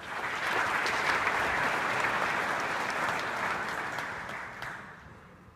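Audience applauding, a dense patter of many hands that starts at once, holds steady, then dies away over the last second or so.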